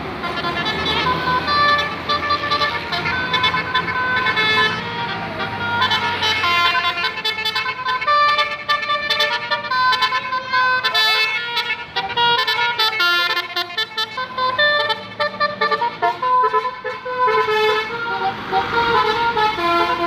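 Basuri V4 melodic telolet horn on a tour bus playing a long tune of stepped, held notes, with the bus engine running underneath in the first half.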